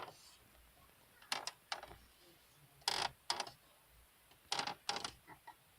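Datsun mi-DO's plastic centre console creaking as it is pressed, in a series of short squeaky bursts clustered a second or so apart. The console creaks wherever it is pushed, a sign of loose, rattly trim panels.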